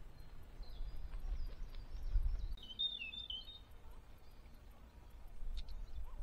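A songbird sings a short run of high, quick chirps, loudest about three seconds in, over an uneven low rumble of outdoor noise.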